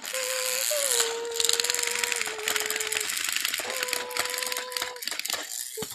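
Battery-powered toy Thomas the Tank Engine running on plastic track, its small motor and gears whirring with rapid fine clatter as it pulls a line of other engines. A steady whine runs along with it, breaking off for a moment around three seconds in.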